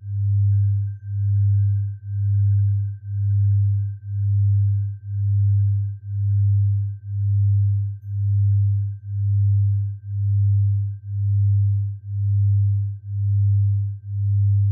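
Electronic low pure tone swelling and fading about once a second, with a faint steady high tone above it: a sound-therapy tone for tinnitus relief.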